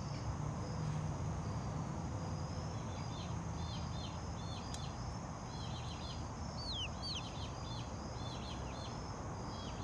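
Young chickens peeping: short runs of quick, high chirps that hook downward in pitch, coming in clusters a few seconds apart, over steady outdoor background noise.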